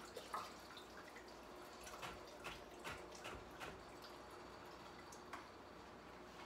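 Cold brew draining from a cheesecloth pouch of coffee grounds held in a sieve over a pitcher: faint, irregular drips into the liquid over a quiet room.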